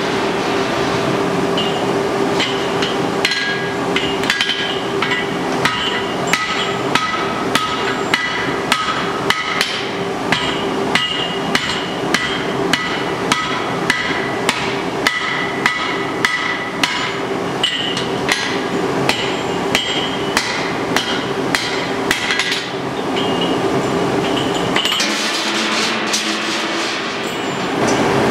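Forging hammer blows on a red-hot iron chain link, struck at a steady rhythm of about two a second, each with a ringing metallic tone. Near the end the blows stop and a steady rushing noise takes over.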